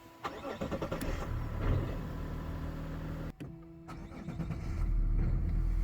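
Mazda CX-60 engine starting and settling into steady running. A little past halfway it cuts abruptly to another stretch of running engine, whose low rumble grows louder near the end.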